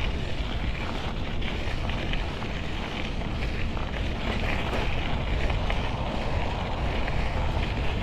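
Steady wind buffeting the microphone while riding a bike, with a continuous low rumble and no distinct events.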